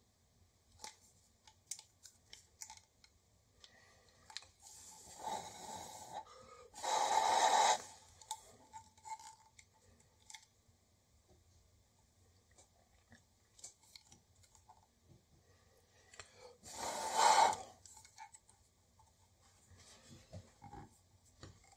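Hands working on a plastic toy: scattered light clicks and taps, with three short harsh noises about five, seven and seventeen seconds in, the one at seven seconds the loudest.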